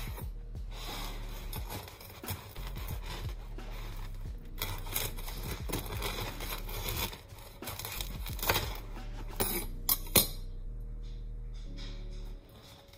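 A chef's knife sawing through the crisp crust of a round loaf of freshly baked tokoch bread, the crust crackling and scraping under the blade, with a few sharp cracks about two-thirds of the way through; it goes quieter near the end.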